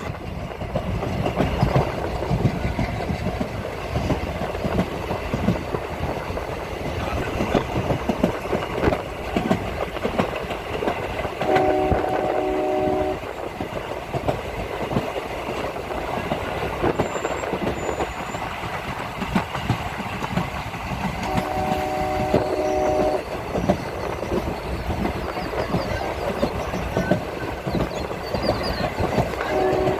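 A train running on the rails with steady rumble and wheel clatter, its horn sounding twice with a chord of several tones, each blast about a second and a half to two seconds long, and starting again at the very end.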